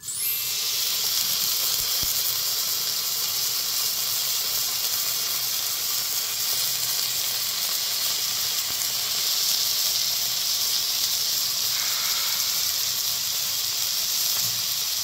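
Slices of marbled beef ribeye sizzling on a hot griddle pan, a steady loud hiss that starts suddenly as the meat is laid down with tongs.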